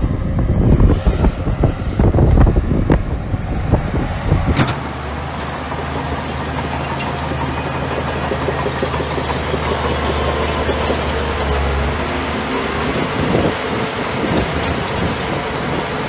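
Shantui bulldozer's diesel engine running, with irregular low rumbles and knocks at first. About four and a half seconds in, the sound changes abruptly to a steady engine drone.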